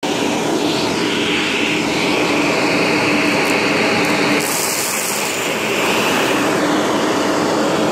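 Shark vacuum cleaner running with its hose nozzle sucking fine dust off carpet: a loud, steady motor whine over rushing air. About halfway through, the tone shifts and the hiss of the airflow gets brighter.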